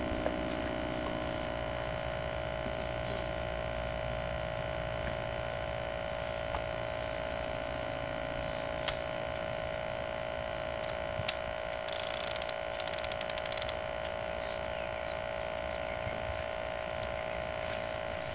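Steady electrical hum made of several fixed tones, with a few sharp ticks and a short run of rapid high clicking about twelve seconds in.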